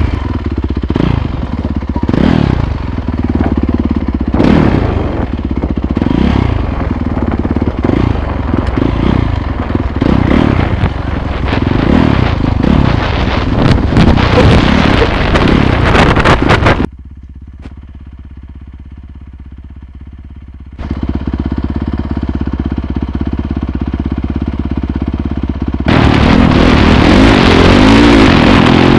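Dirt bike engine revving up and down, rising and falling over and over as it rides a rocky trail, heard from a helmet-mounted camera. About 17 seconds in the sound drops sharply for a few seconds, then returns and runs loud and steady near the end.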